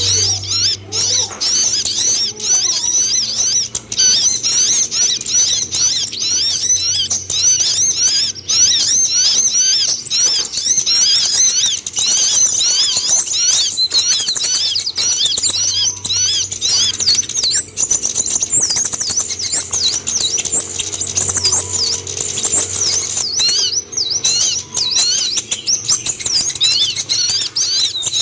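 Kolibri ninja (Van Hasselt's sunbird) song: a continuous, rapid, high-pitched twittering of short chirps, unbroken throughout.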